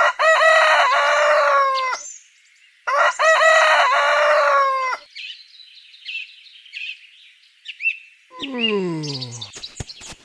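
A rooster crowing twice, each crow about two seconds long, followed by small birds chirping. Near the end a tone slides downward in pitch, followed by a few sharp clicks.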